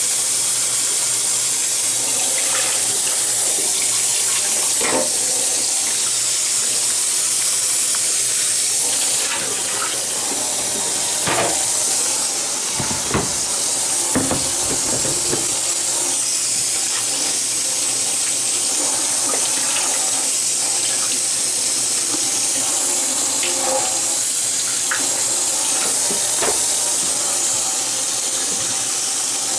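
Tap water running steadily into a sink, with a few scattered knocks and clunks of things being handled under the stream.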